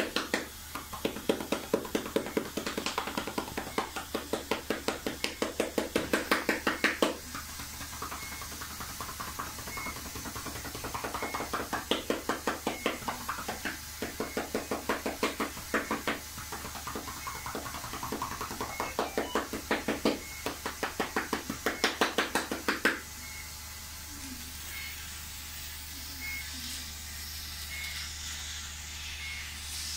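Cupped gloved hands clapping rapidly and rhythmically on a patient's chest wall in runs of several seconds: manual chest percussion to loosen secretions in a chest infection. The clapping stops about two-thirds of the way through, leaving a steady hiss and a faint short beep about once a second.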